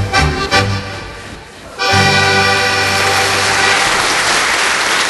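Accordion music playing and fading down, then about two seconds in loud applause breaks in suddenly over a low held note.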